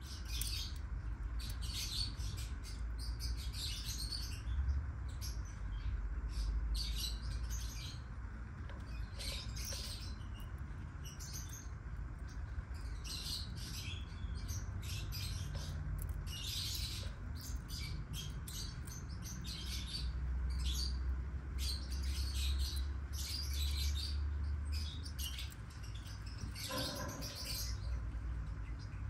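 Lovebirds chirping: many short, high chirps in quick runs, over a steady low rumble.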